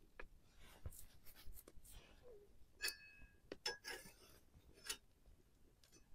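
A spoon scraping and clicking against a small metal pot, with a couple of short ringing clinks about three seconds in. The sounds are quiet and sparse.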